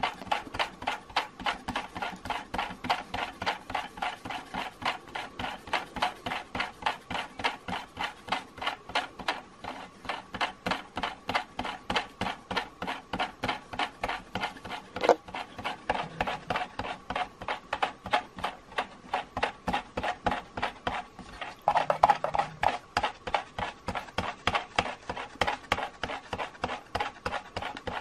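Tyco US 1 operating log-loading bulldozer's drive mechanism running, its small wheels turning the big wheel with a rapid, even clicking, about four clicks a second, over a faint steady whine.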